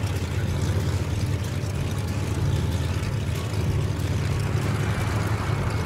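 Aircraft engine drone heard inside the passenger cabin: a steady low hum with an even hiss above it.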